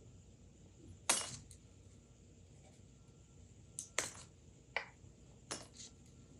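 Small hard objects clinking and knocking as they are handled: one sharp click about a second in, then a quick cluster of five lighter clicks from about four to six seconds in.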